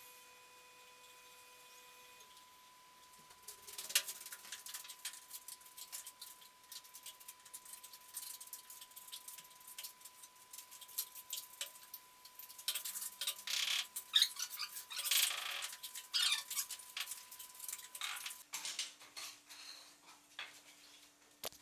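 Masonry work on a brick fireplace: a trowel scraping and tapping on bricks and mortar, an irregular run of clicks, knocks and scrapes, with a faint steady high tone in the first part.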